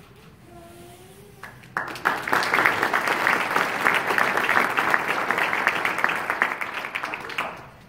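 Audience applauding, breaking out suddenly about two seconds in and dying away near the end.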